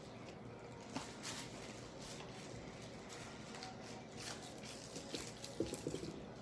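Faint, scattered squishing and clicking of sticky homemade glue-and-detergent slime being worked by hand, with a few louder squelches near the end.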